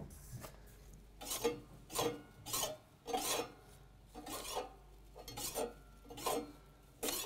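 An Allett Liberty cylinder mower's blades, turned by hand, snipping paper against the fixed bottom blade in a series of short crisp cuts, about one or two a second. It is the paper test of the cylinder-to-bottom-blade setting, here giving a clean scissor cut that shows the cylinder is set correctly.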